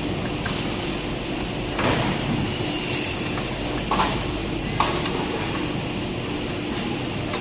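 Machinery of an automatic aluminium window frame CNC production line running with a steady hum, with a few sharp metallic knocks and a brief high squeal of metal a few seconds in.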